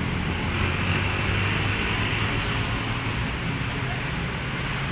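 Steady roadside traffic noise with a low rumble.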